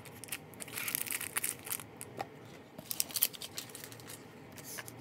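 Rapid crackling, crinkling and tearing of cardboard and plastic packaging as the contents of a Pokémon Sun and Moon Elite Trainer Box are handled, sped up in a time lapse.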